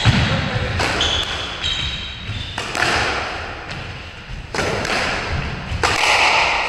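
Squash rally: the ball cracks off rackets and the court walls several times, echoing in the enclosed court, with sneakers squeaking briefly on the wooden floor.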